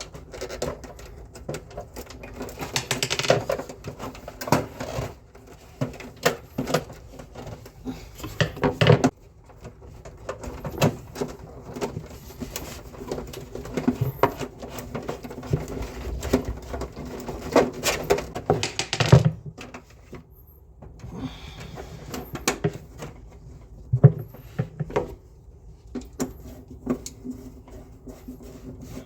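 Irregular knocking and clattering of tools and parts being handled during work on a split air conditioner's indoor unit, over a steady hum.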